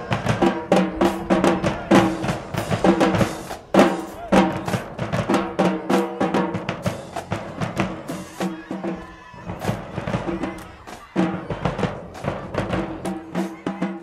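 Marching band playing, with snare and bass drums keeping a busy, steady beat under held brass notes.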